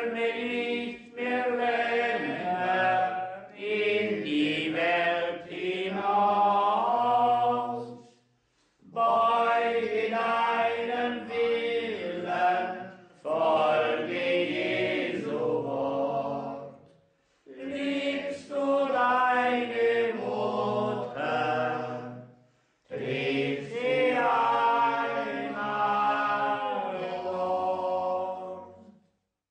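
A small group of older men singing a German hymn together without accompaniment, in four long phrases with brief breaths between; the song ends just before the close.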